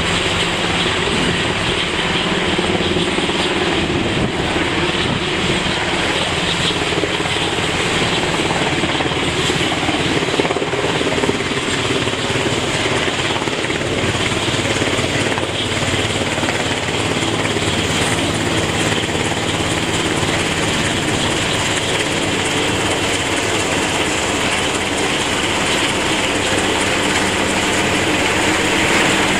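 Sikorsky SH-60F Seahawk helicopter approaching to land, its rotors and twin turboshaft engines making a steady din that grows a little louder near the end as it comes over the deck.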